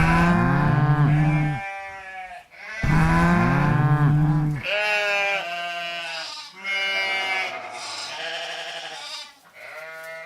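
Sheep bleating, about five wavering calls in a row; the first two are loud and deep, the later ones higher and fainter.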